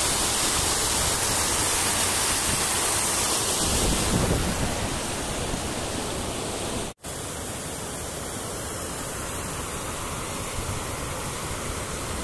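Steady rush of fast-flowing water cascading over rocks. It cuts out for an instant about seven seconds in and comes back slightly quieter.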